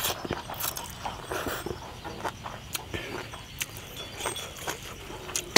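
Close-up mouth sounds of eating rice noodles: a slurp at the start, then wet chewing with irregular lip smacks and clicks.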